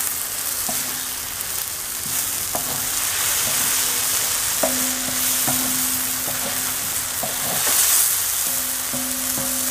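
Chopped potato, onion and tomato sizzling in oil on a large flat iron pan while a wooden spatula stirs and scrapes through them. A steady sizzle with light scraping ticks.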